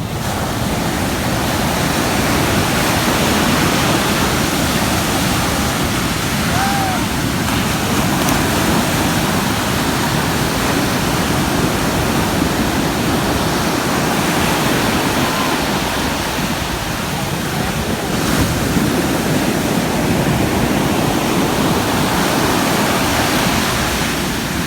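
Sea surf washing in, a loud steady rush that swells and eases slowly.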